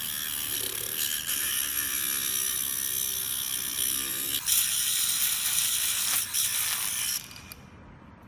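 Homemade 12V DC motor tool running with a harsh, high-pitched grinding noise. It cuts off about seven seconds in.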